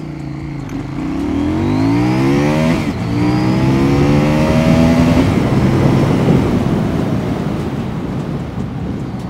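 CFMoto 800NK's 799cc parallel-twin engine at full throttle, its note rising steadily, breaking briefly about three seconds in at a gear change, then rising again. From about five seconds in the engine note falls back under loud wind rush on the microphone at about 100 km/h.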